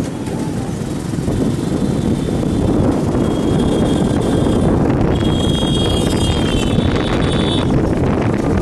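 Wind rushing over the microphone on a moving motorbike, with the bike's running engine and passing traffic underneath. A thin high tone sounds twice in the middle, the second one longer.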